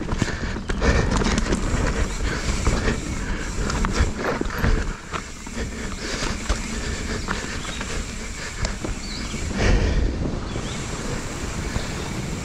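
Mountain bike descending a dirt singletrack: tyres rumbling over dirt and roots, with frequent rattles and clicks from the bike's chain and frame and wind noise on the microphone.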